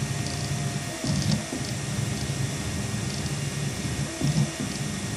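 Delta 3D printer's stepper motors humming and whining as the print head moves through a layer. The pitch shifts with each change of move.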